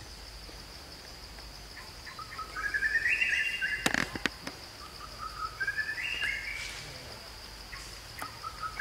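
A bird calling: a run of short whistled notes climbing step by step in pitch, given twice and starting again near the end. A couple of sharp clicks about four seconds in.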